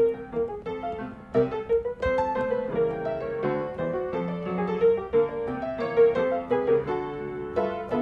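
Background music: a piano tune of separate notes played one after another.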